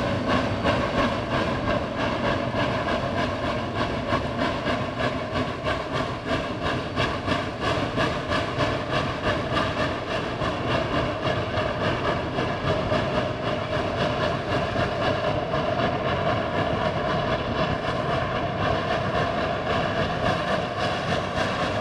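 Geared steam locomotive working hard: fast, evenly spaced exhaust chuffs, with a steady tone running underneath.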